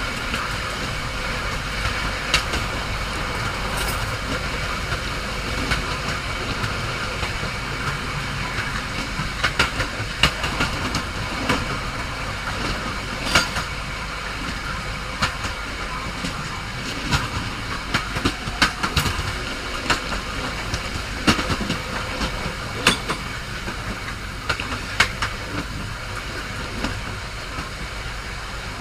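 Train running on the rails: a steady rumble and hiss with irregular sharp clicks and knocks from the wheels and track.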